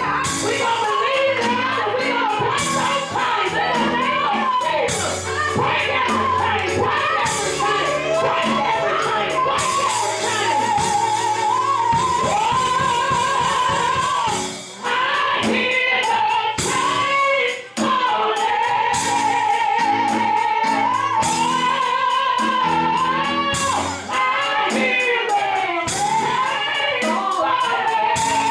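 Live gospel worship music: voices singing a melody over a band with bass and a steady drum beat.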